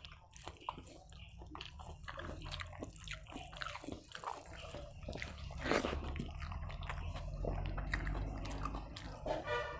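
Close-miked chewing and wet mouth sounds of someone eating rice and curry by hand, with many small smacks and clicks.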